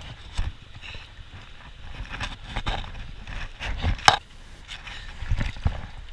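Irregular knocks and scrapes over a low rumble as a hiker moves over rocks through water, the loudest knock about four seconds in.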